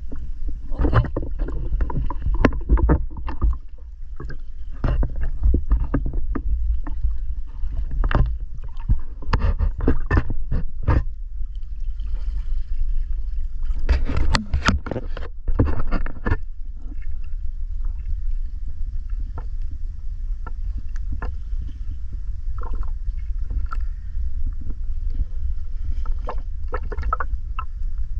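Water splashing and sloshing in irregular bursts over a steady low rumble.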